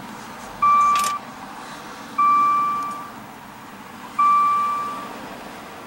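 Maserati Ghibli's dashboard warning chime sounding three times, about two seconds apart: each a single clear tone that starts sharply and fades within a second. The instrument cluster shows a door open.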